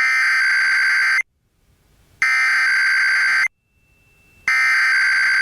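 Emergency Alert System SAME header: three bursts of digital data tones, each just over a second long and about a second apart, the coded header that opens an EAS alert, here a required weekly test.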